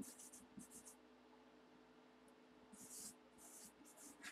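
Marker pen writing on a cardboard box: faint, short, scratchy strokes, a few at the start and another run from about three seconds in.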